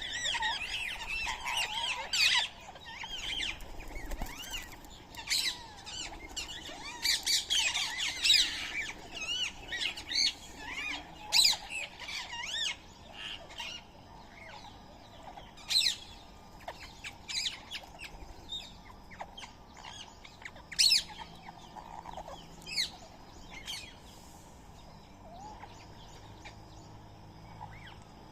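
Indian ringneck parakeets and other birds squawking and chirping, with many short, sharp, overlapping calls through the first half that thin out to scattered calls later.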